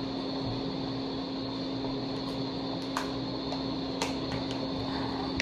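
Steady low hum in a small room, with a few faint clicks about two, three and four seconds in.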